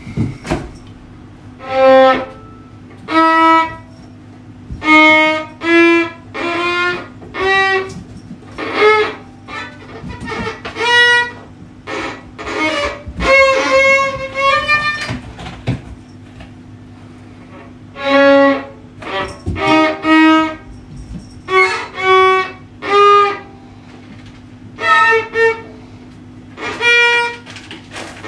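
Solo violin played with a bow: single notes one after another with short pauses between them, and a longer pause about two-thirds of the way through. A steady low hum runs underneath.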